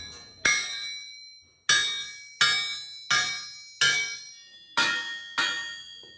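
Seven strikes of metal on metal, each ringing with a clear bell-like tone that fades away, coming at uneven intervals.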